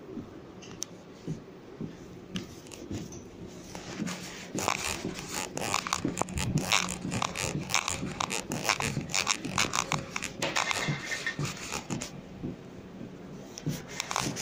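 Close, dense rustling and scraping of clothing and hands against the phone microphone while walking, with footsteps mixed in; it is loudest from about four seconds in until about twelve seconds in, over a low steady hum.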